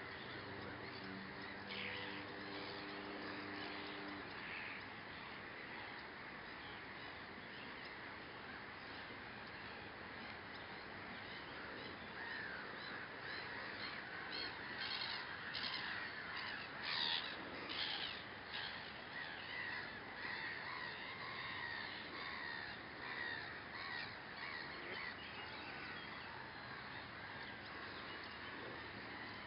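Wild birds calling steadily in the background, with many short calls overlapping. They are busiest and loudest from about twelve to twenty seconds in. A low steady hum runs through the first few seconds.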